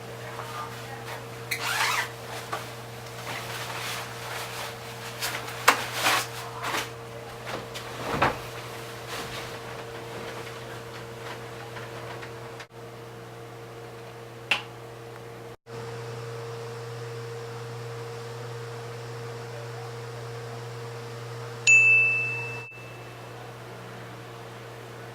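Steady electrical hum with scattered clicks and knocks, then a single high electronic beep lasting about a second.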